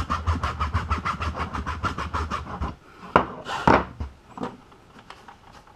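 A hacksaw cuts into the plastic housing of a SeaDoo fuel sending unit in quick, even back-and-forth strokes, stopping a little under three seconds in. A couple of brief rubbing sounds follow as a rag wipes the cut.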